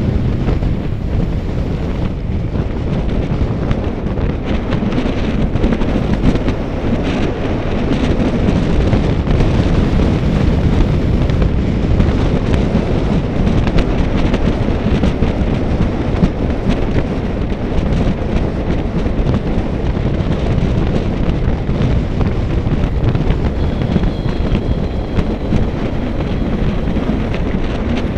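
Wind buffeting the microphone of a camera on a moving bicycle: a loud, steady, low rushing that covers everything else.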